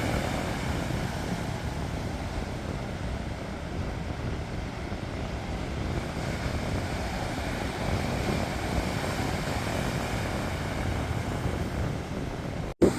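Sea waves washing on the shore, with wind rumbling on the microphone. Near the end the sound cuts out for an instant, then gives a short pop.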